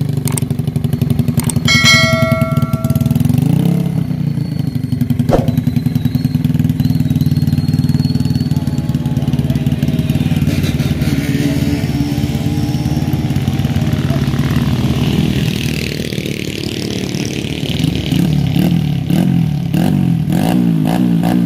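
Bored-up Yamaha Vega R four-stroke single, fitted with a 53 mm FIM piston and a 28 mm PWK carburettor on a 110 main jet and 38 pilot jet, idling steadily after starting, then blipped up and down repeatedly near the end as the new jetting is checked. A brief high tone sounds about two seconds in.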